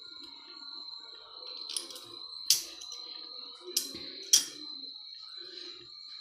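Fluted pastry cutter wheel run through thin rolled dough on a mat: light rubbing and handling noise with four sharp clicks, the loudest two about midway, over a steady high whine.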